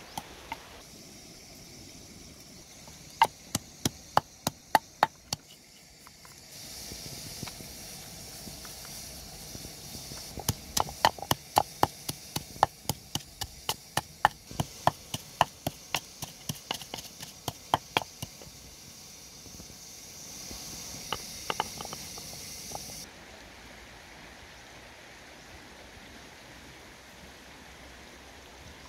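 Knife chopping on a wooden board in runs of sharp taps about three a second, with a steady hiss behind it through the middle.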